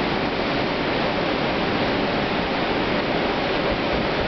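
Hurricane wind blowing hard and steadily through the trees, a continuous even roar like a jet overhead.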